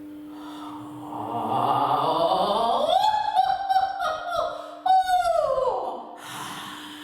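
A singer's voice in a vocal warm-up exercise: it starts on its lowest note in a low strohbass (vocal fry) growl, slides slowly up to a high held note, wavers there, then glides back down and fades out near the end.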